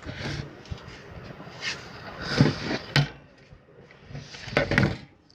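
Scattered clicks and knocks of a table fan being taken apart by hand, its parts and clips knocked and handled, with a sharp click about three seconds in and a quick cluster of clicks near the end.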